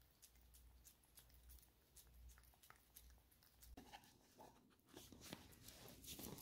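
Faint clicks of a British shorthair cat gnawing a chew stick held in a hand. About four seconds in come louder knocks and rustles as a treat tub is handled.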